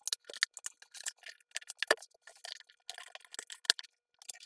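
Bamboo folding camping table being folded up and handled: a string of clicks, knocks and light rattles from its metal legs and hinged bamboo top panels, with two louder knocks about two seconds in and near the middle-to-end.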